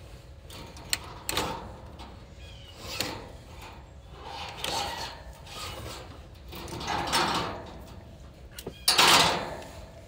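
Inspection camera cable being fed into a rigid metal dryer vent duct, scraping and rubbing in a series of strokes about every two seconds, with a sharp click about a second in and the loudest scrape near the end.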